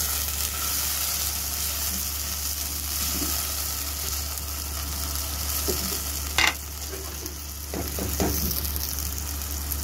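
Sliced onions and ginger-garlic paste sizzling in hot oil in a nonstick pan, stirred with a spatula, with a steady hiss. A single sharp clink about six and a half seconds in, and a few softer knocks near the end.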